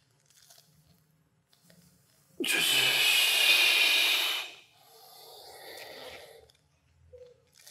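A man's loud, forceful breath out through the mouth, a hiss lasting about two seconds, timed to the effort of a push-up hold. A softer breath follows soon after.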